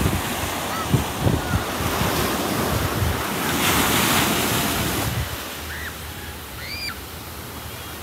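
Ocean surf washing in, with gusty wind buffeting the microphone in the first few seconds. The wash swells about four seconds in, then eases, and a few short high chirps come in the second half.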